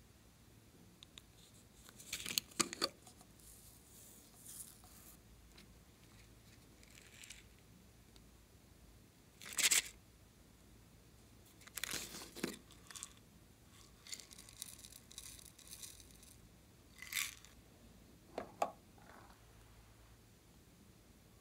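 Hands handling and opening small plastic slime and glitter containers: scattered brief rustling, scraping and peeling sounds, about eight of them, with quiet in between.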